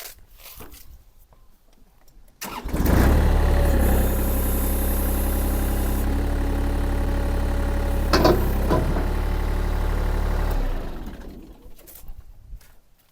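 VMENG 580T Pro mini skid steer's engine starting about two and a half seconds in and running steadily for about eight seconds, then winding down and stopping. There is a short sharp sound about eight seconds in.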